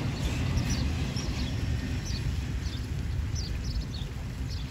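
A small bird chirping repeatedly, short high falling notes, over a low rumble of road traffic that slowly fades.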